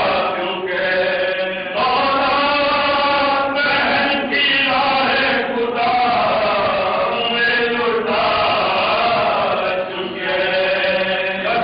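A group of men chanting a marsiya, a Shia elegy, together without instruments, in long held melodic phrases that break about every two seconds.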